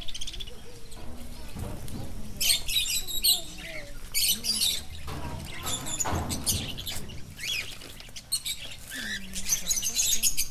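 Birds chirping in quick clusters of high notes, several times over.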